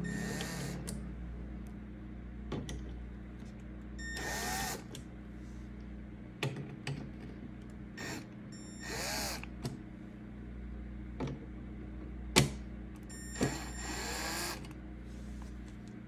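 Hands handling computer parts while fitting an M.2 NVMe drive to a motherboard: scattered light clicks and taps, with three brief scraping or rustling sweeps, over a faint low hum.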